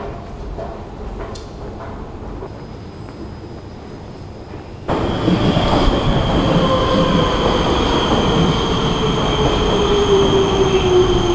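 Prague Metro train pulling into the platform and slowing. Loud rumble with a steady high whine and a lower motor tone falling in pitch as it brakes. This starts abruptly about five seconds in, after quieter hall ambience with a few light clicks.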